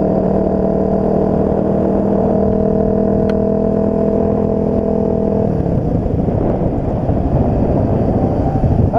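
Off-road vehicle engine running under way on a dirt trail, holding a steady note for about five seconds, then turning rough and uneven as the throttle varies.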